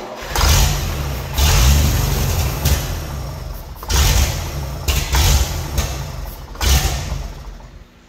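REO/Continental sawmill power-unit engine running roughly while aerosol is sprayed by hand into its carburetor, surging up about six times and sagging between, then fading out near the end. Its carburetor gaskets are in bad shape, which the owner says needs a carburetor kit.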